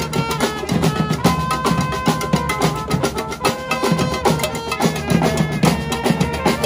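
Live street band: a group of drummers on snare drums, larger drums and djembes playing a fast, steady rhythm together, with trumpets holding long notes over the drumming.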